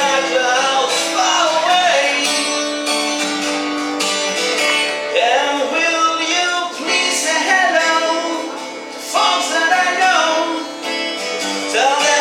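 A song performed live, with a voice singing a melody over plucked guitar accompaniment.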